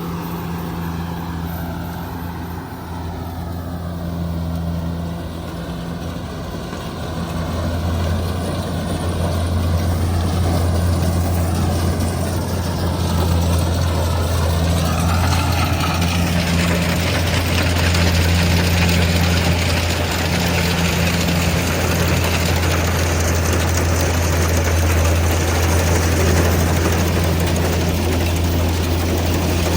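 Kubota DC70G Plus combine harvester's diesel engine running with a steady low drone. It grows louder about a quarter of the way in, and a rushing mechanical noise thickens over the second half.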